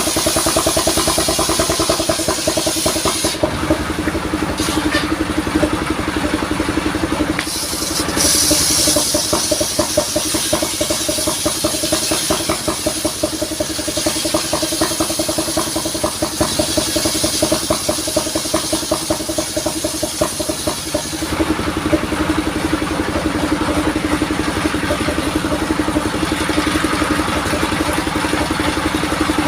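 Engine of a modified saw vehicle running steadily as it drives the saw, with a steady hum over the engine's firing rhythm. Its note shifts a few times, about 3, 8 and 21 seconds in.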